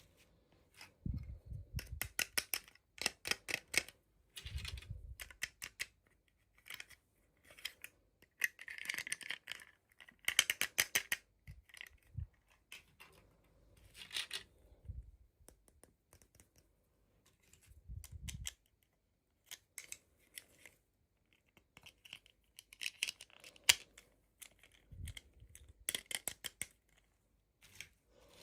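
Small plastic toy packaging being handled and opened: irregular runs of clicks, crinkles and rustles, with a few soft thumps as pieces are set down.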